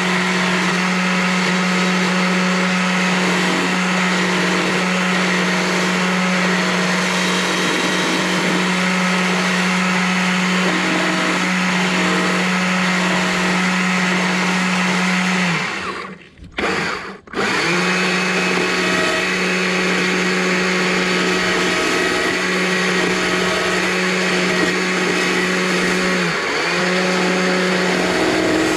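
Stihl electric chainsaw running at a steady, even pitch as it cuts material away from the side of a small log being carved into an owl. The motor cuts out about halfway through and starts again a second later, then dips in pitch briefly a few seconds before the end.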